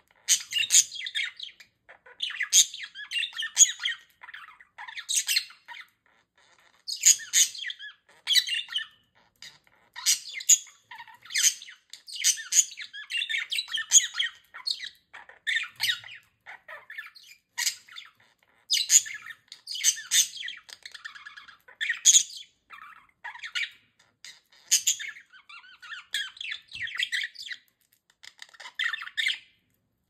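Budgerigars chattering and squawking to each other, a fast high-pitched run of calls broken by short pauses of under a second.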